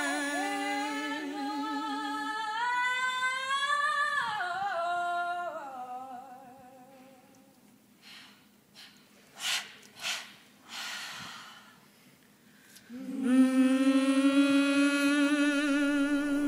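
A cappella solo voice singing wordless held notes with vibrato, rising through a phrase about three seconds in and fading away by about six seconds. After a quiet gap with a few soft breathy noises, a new long held note starts loudly about thirteen seconds in.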